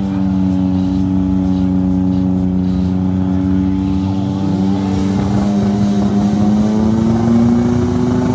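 Small 1.0-litre K-car engine held at steady high revs on the drag start line, its pitch creeping up slightly near the end. A second engine note joins about halfway through.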